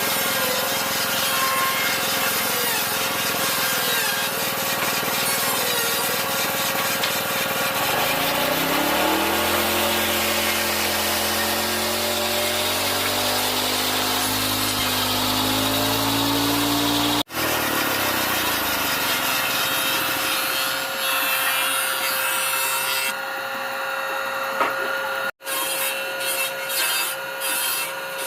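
Woodworking power tools cutting and shaping wood for a table frame. A motor's pitch bends upward for several seconds midway, and the sound breaks off abruptly twice.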